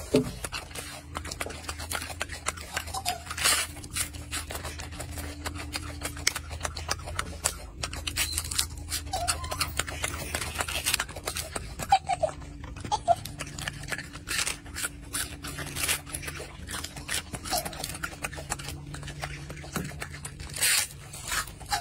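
Golden snub-nosed monkey biting, tearing and chewing crisp lettuce leaves, with a fast, irregular run of crunchy, crackling clicks.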